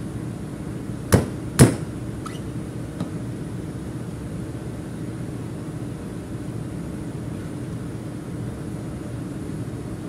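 Two sharp knocks about half a second apart, a second or so in, as the sleeve of a seal-ring mounting tool is pressed down over its cone on a fuel pump suction valve, with a faint tick soon after. Under them a steady machinery hum.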